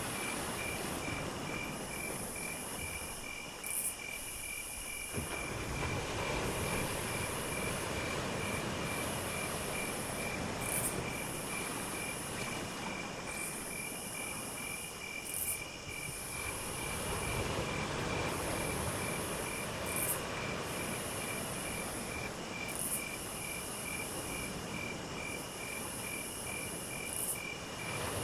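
Crickets and other insects chirping: a steady, even chirp of about four to five pulses a second, with a higher trill that comes in bouts of a few seconds. Underneath is a rushing background noise that swells and fades.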